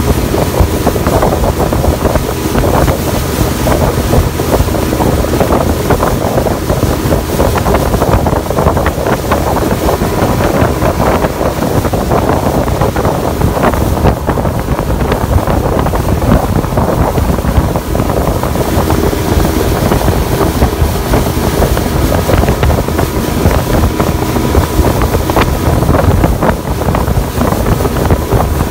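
Strong wind buffeting the microphone on a fast-moving motorboat, over the steady drone of its engine and water rushing past the hull.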